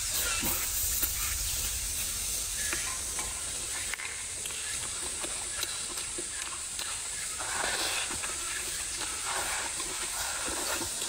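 Eating sounds up close: chewing, with small clicks of chopsticks against the bowl and a couple of short louder bouts of eating near the end, over a steady background hiss.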